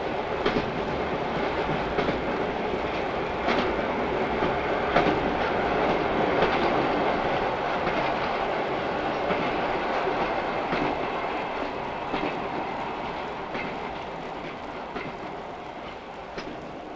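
Train running on the rails with a steady rumble and wheels clacking over rail joints every second or two, fading down over the last few seconds.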